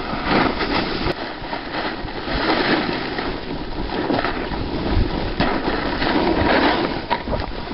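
Skis scraping and hissing over packed snow on a downhill run, with wind rumbling on the microphone.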